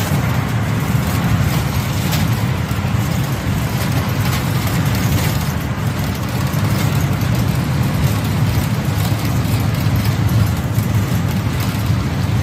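Steady road and engine rumble inside the cabin of a moving RV.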